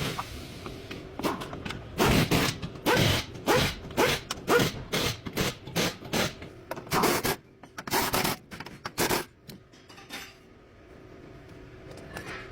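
Hand tool work on the car: a run of short rasping, scraping strokes, about two a second, that stop about nine seconds in, leaving a faint steady hiss.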